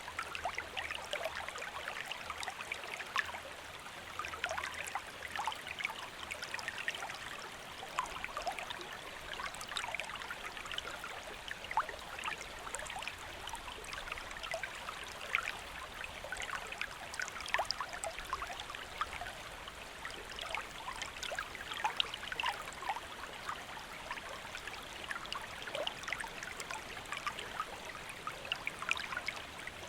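A shallow stream flowing steadily over rocks, with a constant rush and many small splashes and trickles throughout.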